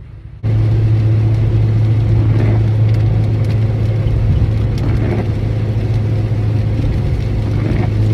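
Cabin noise of a 2013 Honda Civic Si with a six-speed manual while driving: a loud steady low drone comes in suddenly about half a second in, with a few faint clicks over it. It is the intermittent grinding, clanking noise from the drivetrain that the owner suspects is a worn clutch or a transmission fault.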